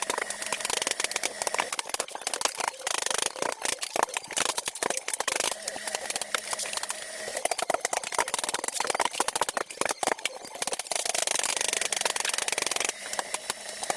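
Underlayment paper rustling and crinkling as it is rolled out and handled over a subfloor, a dense irregular crackle of small clicks and scrapes.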